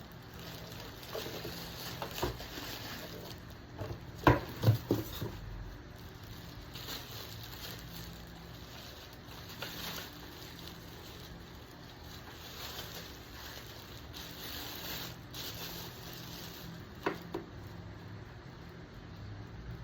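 Air humidifier running with a steady low hum. A few sharp knocks come about four to five seconds in, and two more near the end.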